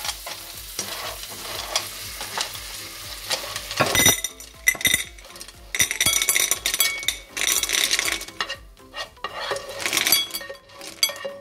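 Cooked periwinkles in their shells being scraped with a spatula out of a hot frying pan into a ceramic bowl: the shells clatter and rattle against the pan and bowl while the butter in the pan sizzles.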